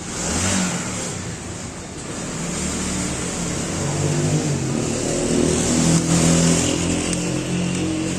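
A motor vehicle's engine running close by, coming in suddenly at the start and growing slowly louder, a shifting hum under a hissing rush.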